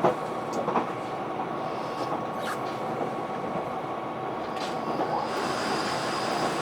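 Running noise heard aboard a JR Hokkaido KiHa 261-5000 series diesel express railcar: a steady rumble of engine and wheels with a faint steady whine. A sharp knock from the track comes right at the start and another just under a second in. A higher hiss with a thin whistle comes in about five seconds in.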